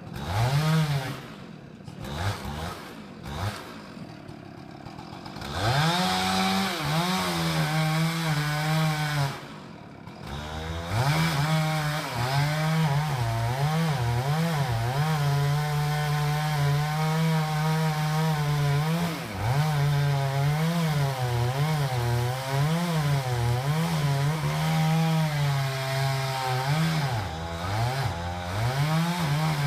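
Chainsaw blipped a few times, then held at full throttle cutting into a large fir trunk from about six seconds in, its pitch sagging and recovering again and again as the chain bites. It eases off briefly around ten seconds in, then cuts on.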